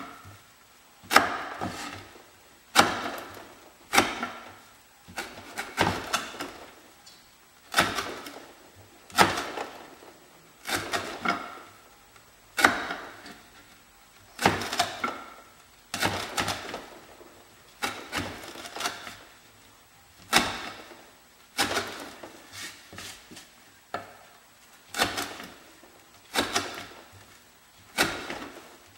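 Swamp Rat Rodent Solution knife chopping through 1/4-inch sisal rope onto a wooden board, one cut about every second and a half. Each cut is a sudden sharp sound that fades quickly, some coming as a quick double.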